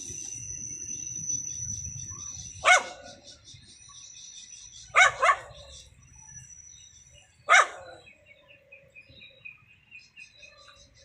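A dog barks three times, about two and a half seconds apart, the middle one a quick double bark, over steady high-pitched bird chirping.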